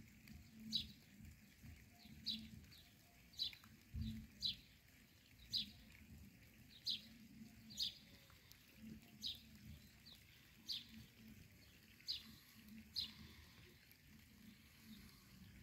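A bird calling over and over, a short falling chirp about once a second, faint, over a low hum.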